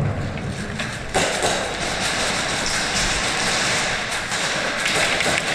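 Steady rushing and rustling of an airsoft player moving with gear, with scattered clicks and knocks and a sharper knock about a second in.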